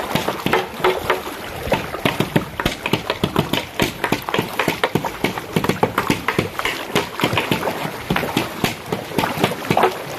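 Flood water slapping and sloshing against a raft of empty plastic gallon water jugs as it is pushed through, a rapid, irregular run of small knocks and splashes.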